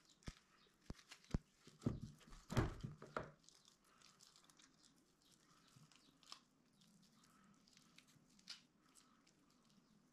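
Paper towel being torn and crumpled by hand, a quick cluster of crackling rips about two to three seconds in, followed by faint wet handling as the soaked paper is squeezed in a white liquid.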